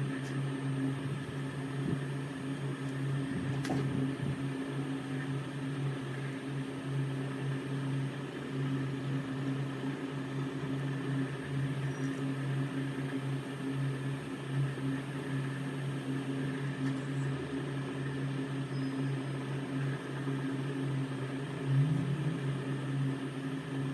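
Steady low machine hum from a small motor or fan running, with a faint click about four seconds in.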